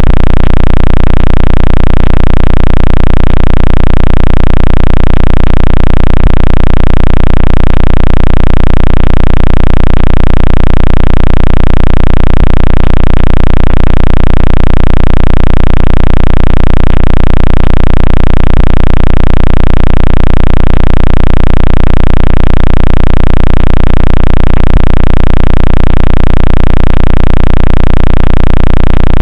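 Very loud, steady synthetic low hum with an even, fast pulsing throb and no change in pitch: an artificially generated water-eject sound, meant to vibrate a phone speaker so that it shakes water out.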